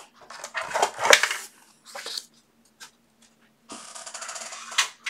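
Craft tools and paper handled on a tabletop: a few light knocks and clatters, then a rattling scrape lasting about a second near the end.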